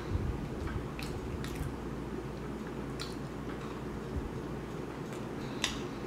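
A person chewing a mouthful of lemon blueberry muffin: a few soft, wet mouth clicks scattered irregularly over a steady low hum.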